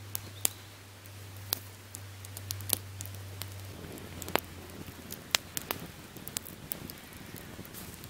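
Small campfire of twigs and burnt log ends crackling, with irregular sharp pops, as the leftover wood is burnt down to ash. A low steady hum underneath stops about four seconds in.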